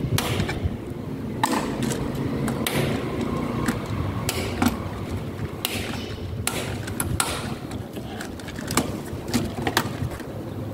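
Miniature circuit breakers being handled and snapped onto the DIN rail of a three-phase distribution board: a string of sharp, irregular clicks and knocks, over a steady low background rumble.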